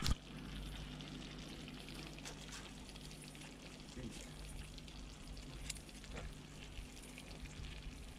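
Hot sauce sizzling and crackling faintly in a tray of lamb shanks just out of a portable cooker, with a faint low hum underneath. A short knock comes right at the start.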